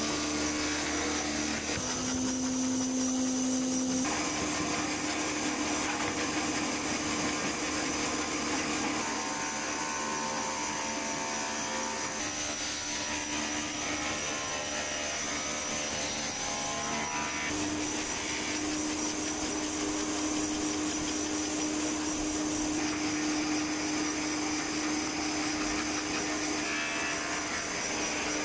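Electric scroll saw running, its thin blade moving up and down as it cuts out letter shapes in a wooden board: a steady motor hum with a high whine, its pitch shifting slightly a few times.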